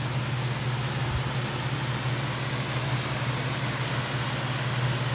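Water spilling over a small concrete dam on a creek: a steady rush of water, with a steady low hum underneath it.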